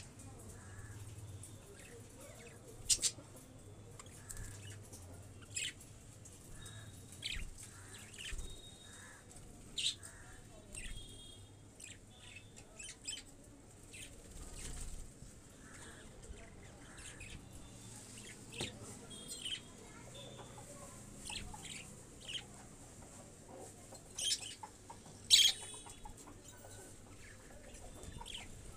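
Chickens feeding, giving scattered short, high chirps and clucks every second or two, the loudest about 25 seconds in.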